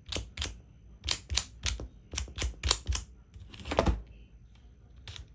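Plastic tiles of a Rubik's Cube sliding puzzle clicking as they are slid and snapped into place, about a dozen quick clicks in the first four seconds, then a pause with one more click near the end.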